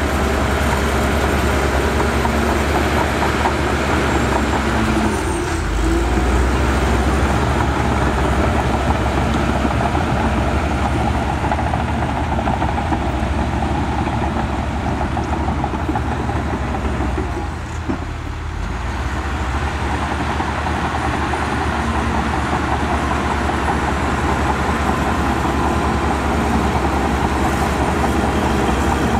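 A bulldozer's diesel engine running steadily as it works soil, with a brief drop in level about eighteen seconds in.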